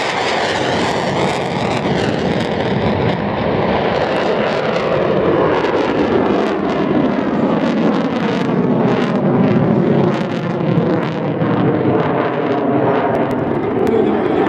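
Mikoyan MiG-29's twin Klimov RD-33 turbofans in afterburner during a display pass: a loud, steady jet roar. From about four seconds in it carries a harsh crackle.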